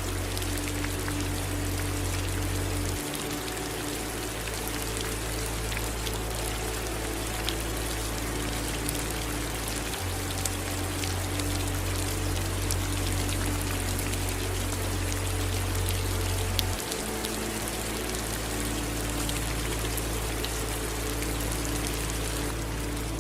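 Steady rain falling, an even hiss with scattered drop ticks. Under it a low sustained ambient music drone holds each note for several seconds, changing note three times.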